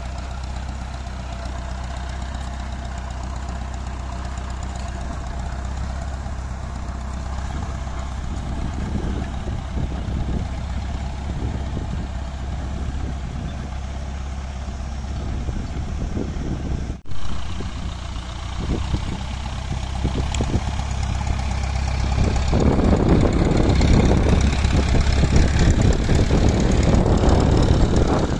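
Tractor diesel engine running steadily while it pulls a seed drill through the soil. The sound breaks off for an instant about two-thirds of the way through, and grows louder and rougher near the end.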